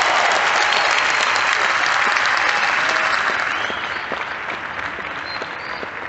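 Large arena audience applauding, a dense clapping that fades over the last couple of seconds as it dies down.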